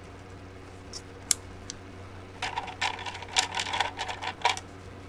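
Typing on a keyboard: three separate keystrokes about a second in, then a quick run of keystrokes lasting about two seconds. A steady low hum lies underneath.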